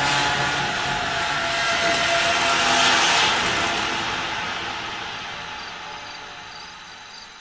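Sound-design whoosh used as a scene transition: a rushing swell of noise that builds to a peak about three seconds in, then fades slowly. Held low music tones sound under its start and die away.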